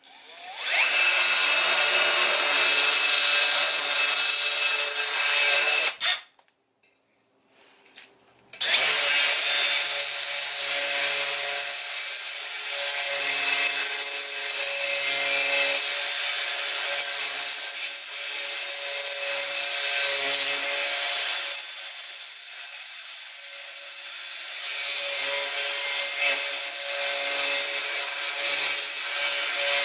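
Milwaukee Fuel cordless drill running under load, its bit cutting into a cast aluminium cover to trim it for clearance: a steady motor whine with grinding noise. It stops about six seconds in and starts again a couple of seconds later.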